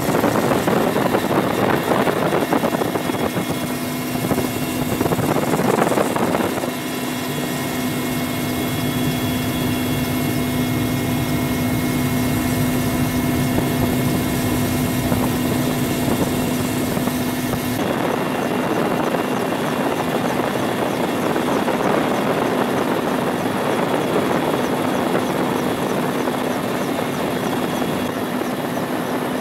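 Military helicopter in flight, its engines and rotor heard from inside the cabin: a continuous drone with a constant low hum. The rushing noise is heavier for the first six seconds or so and changes character about two-thirds of the way through.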